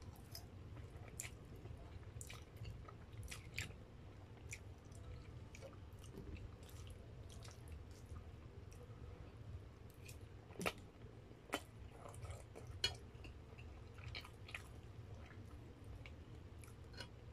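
A person chewing spaghetti close to the microphone: soft wet mouth clicks and smacks scattered throughout, with three sharper clicks a little past the middle, over a faint steady low hum.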